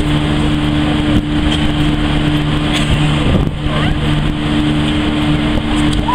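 Ferry's engines droning steadily with a constant low hum, under a loud rushing of wind and sea.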